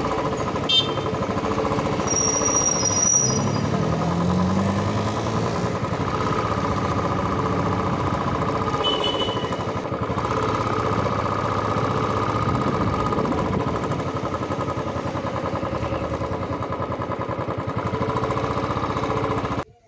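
Royal Enfield motorcycle engine running steadily while being ridden, its pitch rising briefly about three seconds in. It cuts off suddenly near the end.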